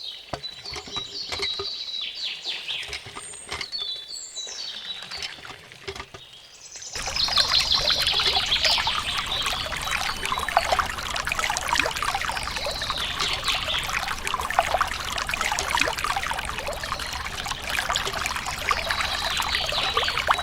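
Water pouring and splashing. It starts about seven seconds in and keeps a steady level, with birds chirping in the background.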